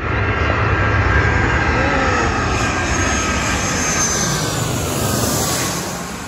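Twin-engine jet airliner passing low overhead on approach with gear down: a loud jet-engine roar with a high whine, starting suddenly. The whine falls in pitch as the plane goes over, and the sound fades near the end.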